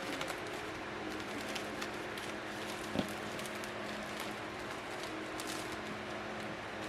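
Packaging and stove parts being handled: scattered light clicks and rustles, with one sharper knock about three seconds in, over a steady low hum.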